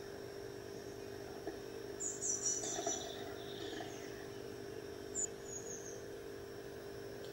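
High-pitched blue tit chirps: a short burst about two seconds in and a shorter one about five seconds in, over a steady low hum.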